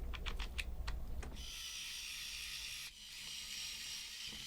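Several quick, light clicks of small plastic kit parts being handled and fitted together in the first second or so, followed by a steady faint hiss.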